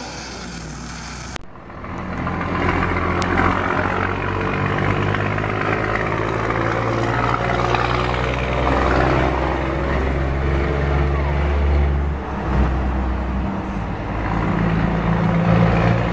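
Heavy truck's diesel engine running as the rig moves slowly past, a steady low engine note that shifts a little in pitch about twelve seconds in. It follows a short quieter stretch that cuts off about a second and a half in.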